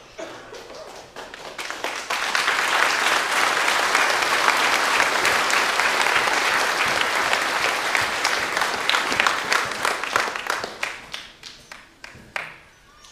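A congregation applauding. The clapping swells over the first couple of seconds, holds for about eight seconds, then dies away to scattered claps near the end.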